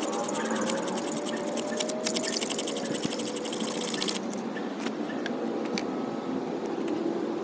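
Rapid run of rasping scrapes from the edge of a Stanley 10-049 pocket knife, many strokes a second for about four seconds, then stopping abruptly.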